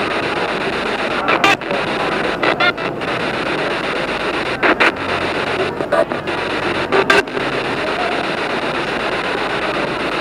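SB7 spirit box sweeping through radio stations: a steady hiss of static broken by a handful of short, chopped-off snippets of broadcast sound, bunched in the middle seconds.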